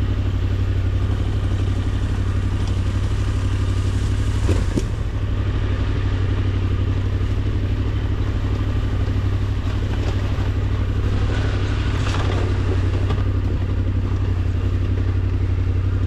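Yamaha Ténéré 700's 689 cc parallel-twin engine running steadily at an even speed, with a single knock about four and a half seconds in.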